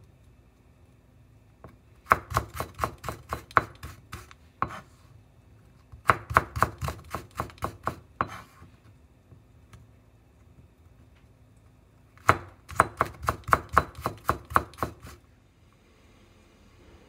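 Kitchen knife chopping slivered burdock root (gobo) on a wooden cutting board: three runs of quick, sharp strokes, about four or five a second, with short pauses between.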